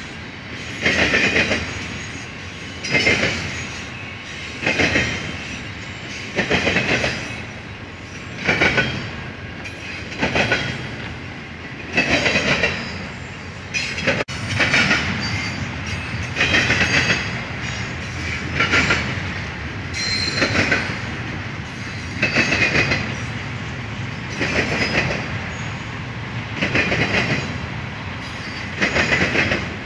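Double-stack intermodal freight cars rolling past at speed. Steel wheels clatter in a loud burst about every two seconds as each set of trucks goes by, with steady rolling rumble in between.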